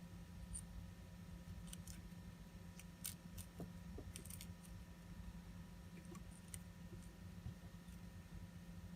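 Faint, irregular small clicks of metal watchmaker's tools handling a watch movement, over a steady low electrical hum.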